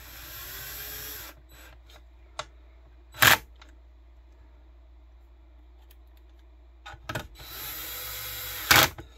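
Cordless drill-driver running screws into an RC car chassis in two short runs of about a second each, one at the start and one near the end. A loud, sharp burst comes about three seconds in and another as the second run stops, with a few light clicks just before the second run.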